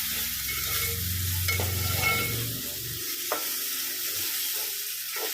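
Ginger-garlic paste and onion sizzling in hot oil in a pot while being stirred, with a few light taps of the spoon against the pot. A low hum underneath stops about three seconds in.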